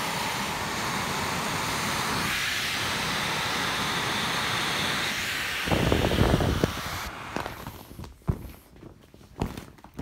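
Air hissing steadily out of the open valve of a huge, soft vinyl inflatable beach ball as it deflates, with a louder rustle of vinyl being pressed about six seconds in. The hiss stops about seven seconds in, leaving soft crinkles of the slack vinyl being squeezed.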